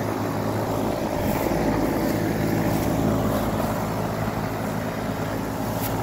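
2022 Tempstar N4H4 4-ton heat pump's outdoor unit running steadily in heat mode shortly after start-up: the hum of its Copeland scroll compressor under the steady whoosh of the top fan blowing very cold air.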